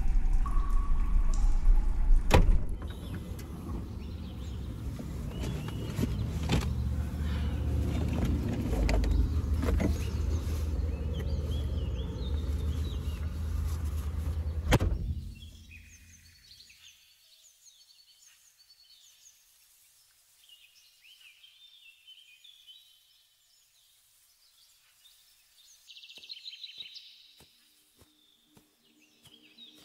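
A loud, steady low rumble broken by a few sharp knocks, the last and loudest of them about 15 s in, after which the rumble dies away. Then a quiet outdoor stretch of songbirds chirping, with a louder burst of chirps about 26 seconds in.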